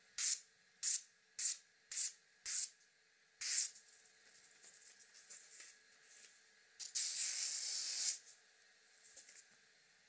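A sharp knife slicing through magazine paper in six quick, crisp strokes over the first few seconds, the paper rustling between them. About seven seconds in comes one longer, louder stretch of paper noise lasting about a second, then a few faint rustles.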